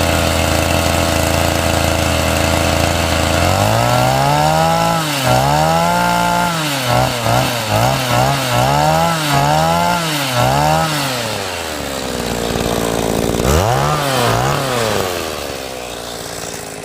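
Petrol RC car's small two-stroke engine idling steadily, then revved up and down in about eight quick blips. It settles back, gets two more revs, and fades out near the end.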